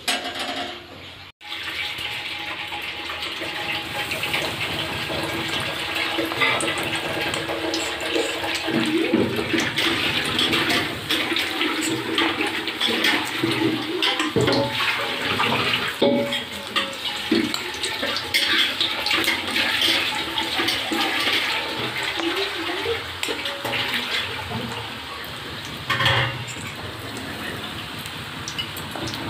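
Battered cauliflower fritters deep-frying in hot oil in an aluminium kadai: a steady bubbling sizzle with many small crackles. It cuts out suddenly for a moment about a second and a half in, then runs on.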